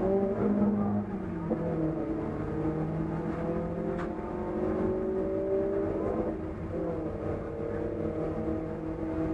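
Race car engine heard from inside the cabin, running at low revs with a pitch that creeps up, drops about six seconds in and creeps up again; the engine has a destroyed connecting-rod bearing. A single sharp click about four seconds in.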